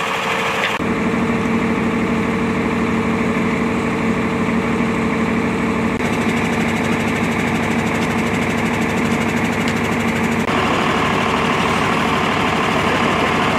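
Idling engines of parked emergency vehicles, an ambulance and a fire engine, running steadily; the sound changes abruptly a few times as the shots cut between vehicles.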